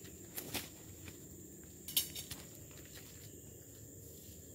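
Footsteps on a dry forest path: a few scattered crunches and snaps of dry leaves and twigs, the loudest about two seconds in, over a steady high-pitched insect hum.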